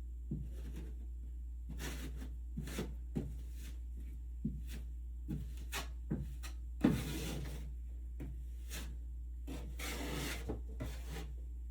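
Hand tool scraping and tapping on drywall during a ceiling patch repair: scattered light knocks, and two longer scraping strokes in the second half.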